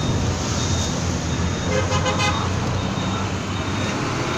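A tub crowded with live fish thrashing in shallow water: a steady wet splashing and churning, with a low hum underneath.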